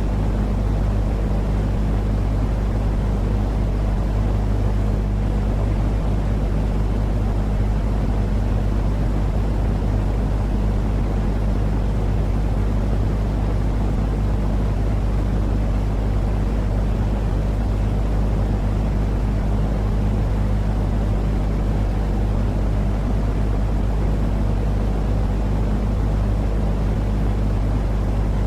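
Steady, unbroken low rumbling noise from a sleep-sound mix of white noise and cat purring, heaviest in the bass with no pauses or changes.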